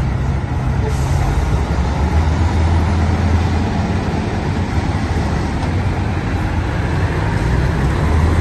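Heavy diesel engines of wheel loaders and a dump truck running together in a low, steady drone. It swells a little about three seconds in and again near the end as a loader lifts its bucket.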